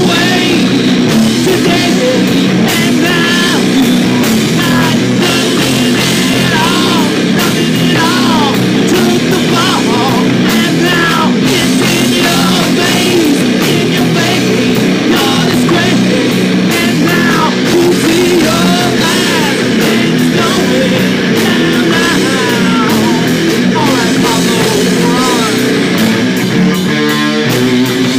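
Rock band playing live and loud: electric guitars, bass guitar and a drum kit.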